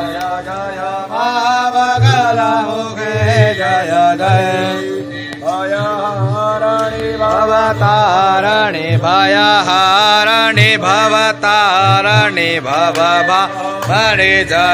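Hindu devotional mantra chant set to music: a sung voice line over a steady drone, with low drum beats about once a second.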